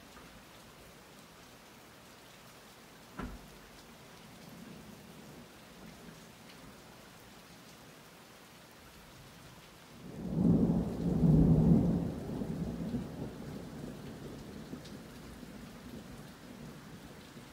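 Steady rain falling during a thunderstorm. About ten seconds in, a deep roll of thunder builds quickly to the loudest point, then rumbles away over several seconds. A single short, sharp click comes about three seconds in.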